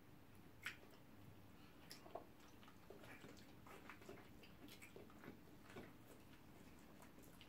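Near silence with faint, scattered clicks and smacks of people chewing and eating with their fingers, one slightly sharper click just under a second in, over a faint steady low hum.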